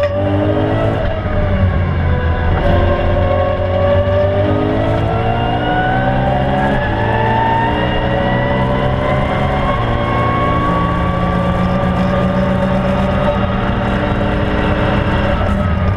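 BMW E92 M3's 4.0-litre V8 heard from inside the cabin, pulling hard under acceleration on track. The engine note climbs steadily and drops back at upshifts about seven and ten seconds in.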